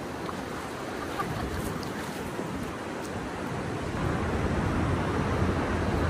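Ocean surf washing up a sandy beach, a steady rushing hiss that swells louder about four seconds in as a wave comes in.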